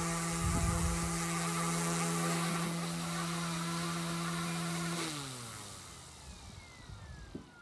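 OMP M2 V2 electric RC helicopter's motor and rotor whining steadily after touchdown. About five seconds in the motor is cut and the whine slides down in pitch and fades as the rotor spools down. Wind gusts rumble on the microphone near the start.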